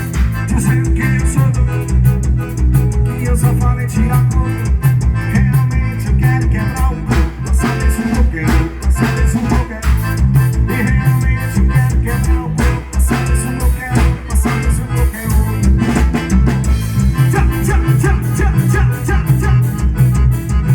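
Loud band music with a steady bass and drum beat, guitar and some singing, played through a small PA sound system.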